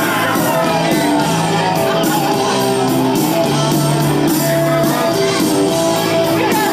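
Background rock music with guitar, playing steadily.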